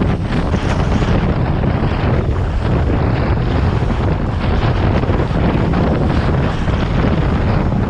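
Windsurf board planing fast over choppy water, a steady rush and slap of water and spray, under heavy wind buffeting on the microphone.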